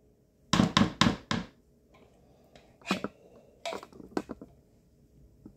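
A tin can of condensed cream of chicken soup being emptied into a bowl: three sharp knocks in quick succession, then lighter clicks and scraping as a silicone spatula works the soup out of the can.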